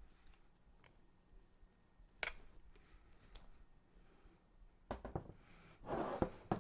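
Faint handling noise from a camera gimbal rig being turned and adjusted by hand: scattered light clicks, one sharper click about two seconds in, then a cluster of louder rustles and knocks near the end.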